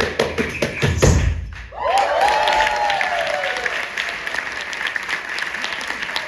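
Two heavy low thuds, then an audience breaking into applause about two seconds in, with one falling whoop from someone in the crowd as the clapping starts.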